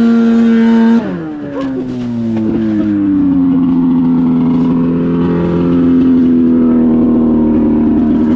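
Snowmobile engine held at high revs with a steady high pitch; about a second in the revs fall away, the pitch sliding down, and it settles into steady running at a lower speed.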